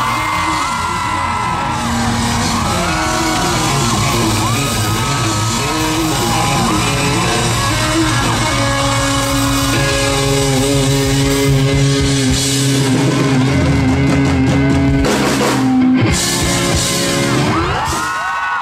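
Live rock band playing the closing bars of a song, with electric guitar, bass, drums and singing over held chords. A few sharp drum and cymbal hits come near the end.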